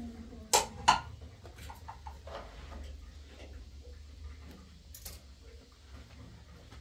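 Sharp clicks and knocks of objects being handled: two loud ones close together about half a second in and a fainter one near five seconds, over a steady low hum.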